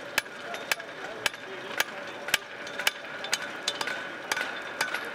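Hand hammer striking hot steel on an anvil, about two blows a second, with fainter knocks between them, over a faint steady high tone. This is blacksmiths forging tongs from round bar stock.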